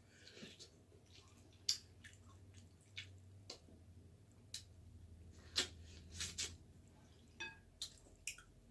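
Scattered sharp clicks and wet squishes of saucy seafood boil being handled and chewed, over a low steady hum.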